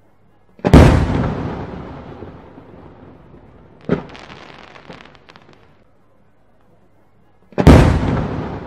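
Two aerial firework shells bursting, each a sudden loud boom with a long fading tail, about a second in and again near the end. Between them comes a smaller sharp pop followed by a short spell of crackling.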